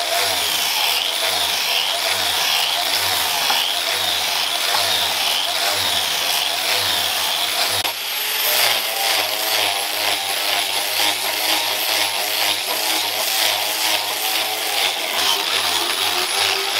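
Electric angle grinder with a sanding disc running and grinding a wooden knife handle to shape: a steady, loud grinding noise with a high whine that wavers as the disc bites. It breaks briefly about eight seconds in, then runs again.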